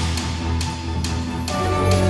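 Background music: sustained instrumental chords over a steady percussion beat of about two hits a second, the harmony changing about one and a half seconds in.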